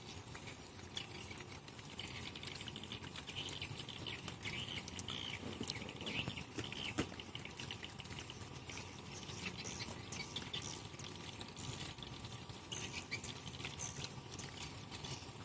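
A group of puppies eating together from shared trays and bowls: a steady patter of lapping, chewing and smacking, with a few sharper clicks about the middle.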